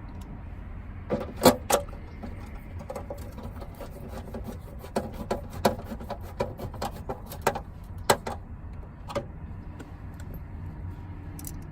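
Scattered sharp clicks and taps of hand tools and screws against the plastic dash trim as two screws are put back into the lower dash panel: a loud pair about a second and a half in, then a run of irregular clicks from about five to nine seconds, over a steady low rumble.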